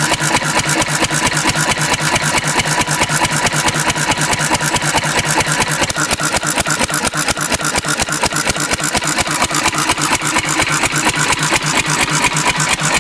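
Antique Cushman Cub stationary engine running steadily at governed speed on diesel instead of gasoline, its firing an even, rapid beat that holds without faltering.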